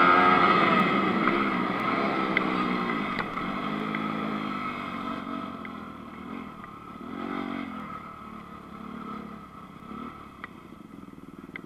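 2019 Honda CRF250 four-stroke single-cylinder motocross bike engine, heard close up, revving up and easing off in repeated swells while ridden on a dirt track. It grows steadily quieter as the bike slows, with a few light ticks.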